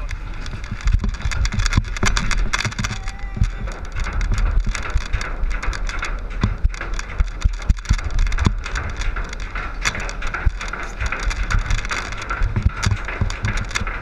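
Log flume boat being carried up the lift ramp: a continuous rattling clatter of many small clicks and knocks from the lift conveyor, over a steady low rumble.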